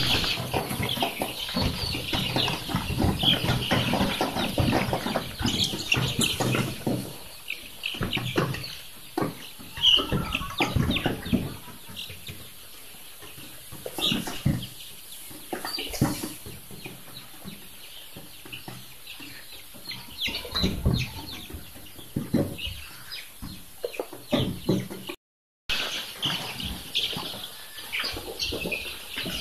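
A flock of young layer-type chicks peeping and cheeping, many short high calls overlapping, with scattered knocks and bumps. The calling is busiest in the first several seconds and then thins out. The sound drops out for a moment near the end.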